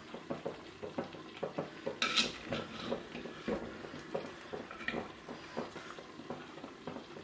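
Metal skimmer ladle scraping and knocking against a clay pot and a steel plate as boiled tapioca chunks are scooped out of their cooking water and tipped onto the plate, with a brighter clink about two seconds in.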